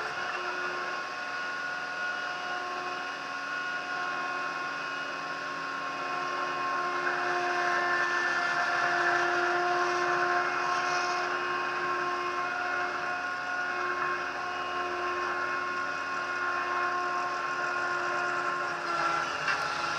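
TCM 706 compact loader's engine running steadily with a constant whine, growing a little louder for a few seconds around the middle.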